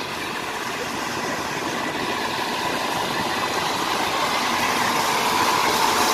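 Rice combine harvester's engine running steadily, growing gradually louder.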